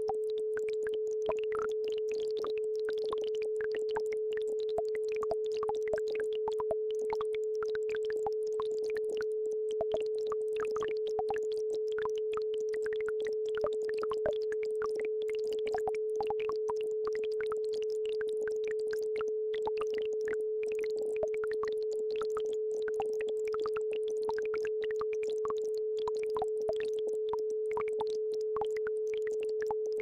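Isochronic tone: a single mid-pitched electronic tone held at one pitch, over the faint trickle of a babbling brook.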